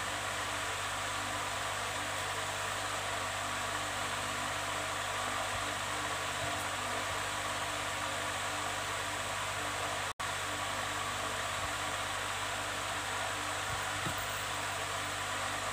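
Steady electric whirring with a low hum from a running fan-type motor, unchanging throughout and cutting out for an instant about ten seconds in.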